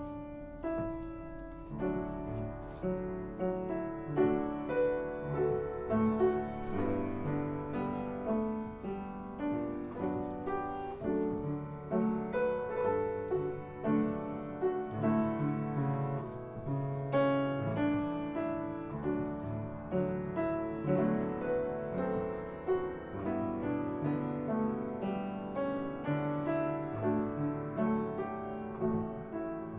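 Piano background music: a continuous run of notes and chords.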